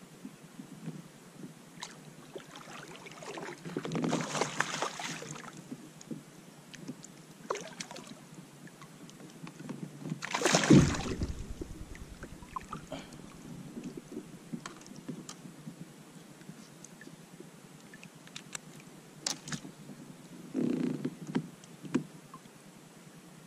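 Water splashing and knocks against a kayak as a hooked smallmouth bass is brought alongside and landed by hand, with a sharp, loud hit about eleven seconds in.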